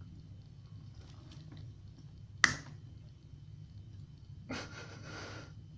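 Pliers being worked on a euro lock cylinder: one sharp click about two and a half seconds in, then about a second of scraping near the end.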